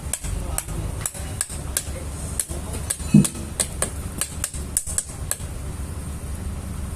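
Sharp, irregular metallic taps and clinks of hand tools on metal during a starter motor repair, about twenty strikes. A steady low hum runs underneath, and there is a brief low thud about three seconds in.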